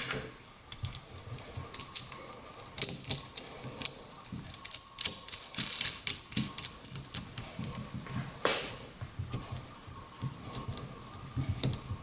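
Irregular light metallic clicks and taps of a carriage bolt and nut being fitted to a crimped copper lug on a heavy 2-gauge cable, with a brief scraping rustle a little after the middle.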